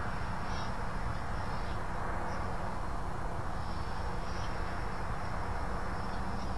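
Steady hiss with a faint low hum underneath and no distinct events.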